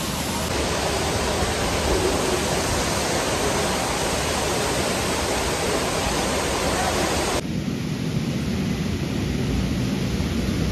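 Kempty Falls waterfall pouring into its plunge pool: a loud, steady rush of falling water. About seven seconds in it cuts suddenly to a duller, lower rushing noise.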